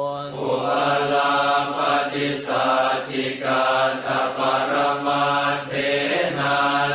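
Thai Buddhist funeral chant: voices chanting on a nearly level pitch over a steady low drone, in phrases with short breaks between them.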